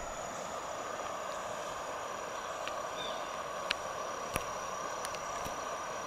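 Steady rush of flowing river water, with crickets trilling on a continuous high note over it and a few faint clicks about halfway through.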